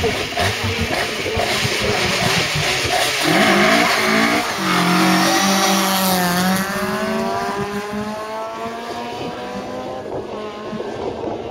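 Mk2 Ford Escort rally car revving on the start line, then launching with wheelspin and tyre squeal. It accelerates away hard, with one upshift about six seconds in, and the engine note climbs again and fades as the car pulls away.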